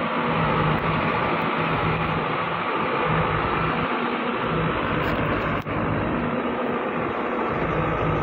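Diesel engine of a heavily loaded TMT log truck running hard as it climbs a steep dirt track, a steady, rough noise with a brief break about five and a half seconds in.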